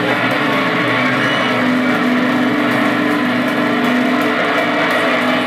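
Electric guitar amplifiers left droning with steady, unchanging feedback tones over the hubbub of a concert crowd.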